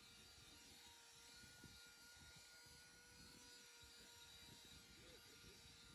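Xiaomi portable car vacuum cleaner's motor running with a faint, steady whine.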